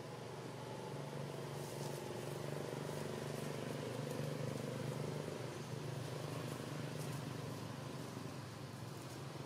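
Steady low hum of a distant engine, swelling slightly midway, with faint ticks and rustles now and then.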